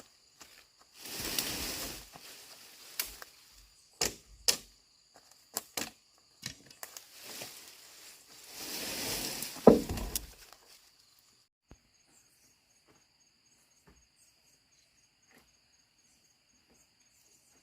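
A couple of scraping, swishing noises and scattered sharp knocks, then from about two-thirds of the way in only a steady high chirring of insects.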